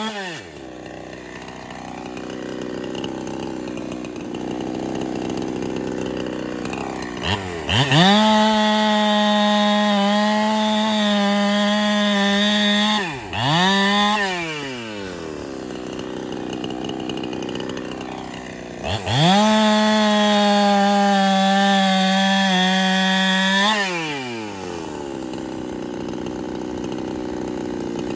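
Ported Holtzfforma 372 chainsaw, a Husqvarna 372 clone with a two-stroke engine, dropping to idle. After a quick blip of the throttle it is run wide open twice for about five seconds each, falling back to idle after each run. The saw is freshly ported and still being broken in.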